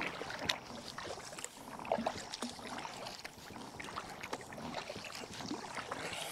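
Kayak being paddled on calm water: quiet paddle dips and drips, with scattered light ticks.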